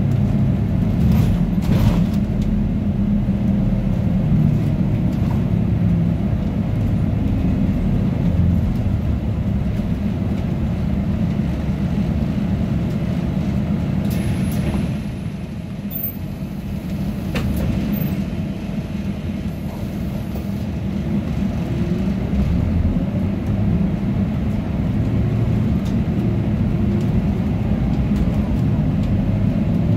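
Interior sound of a Scania OmniLink CK230UB city bus under way: steady engine and road rumble, with the air-conditioning running loudly over it. In the last third a faint whine slowly rises in pitch as the bus picks up speed, the sound of its ZF 5HP504C automatic gearbox.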